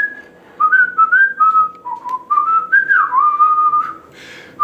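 A man whistling a tune through pursed lips: short held notes stepping up and down, with one downward slide about three seconds in.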